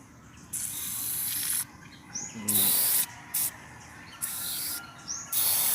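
Aerosol oil spray hissing in five short bursts onto rusted distributor cap terminals; the first burst lasts about a second.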